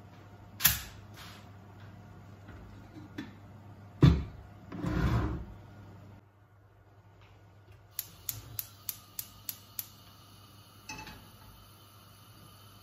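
Gas hob's spark igniter clicking seven times in quick succession, about three clicks a second, as a burner is lit. Before it come a few sharp knocks and a short rustle of cookware being handled, and a single knock follows.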